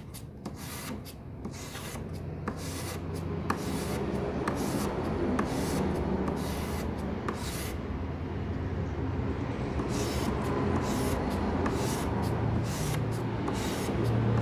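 Scissor blades scraping against oiled 1000-grit sandpaper in repeated strokes, a gritty 'srek-srek' sound: a dull pair of scissors being sharpened.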